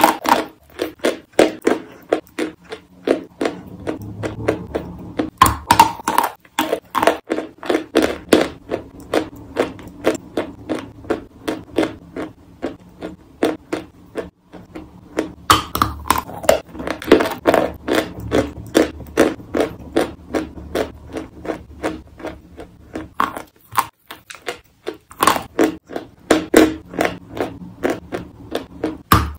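Close-miked biting and chewing of wet chalk blocks coated in paste: a steady run of rapid wet crunching and crackling, with a louder bite about every ten seconds.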